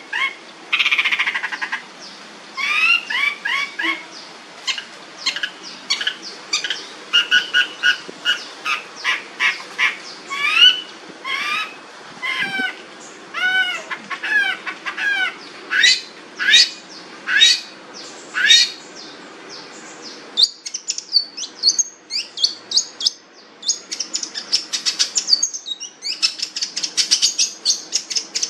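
Long-tailed shrike (cendet) singing a loud, varied song of short repeated whistled notes that rise and fall, switching about 20 seconds in to a fast, high-pitched chattering series.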